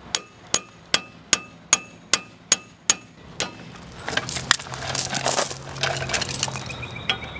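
A hammer strikes a hand-held manual impact screwdriver nine times in a steady rhythm, about two or three blows a second, each a sharp metallic ring. These are the blows that drive the bit into a seized Phillips brake-rotor screw to break it loose. After the last blow comes a jumble of clinks and rattles as the metal tools are handled and set down on gravel.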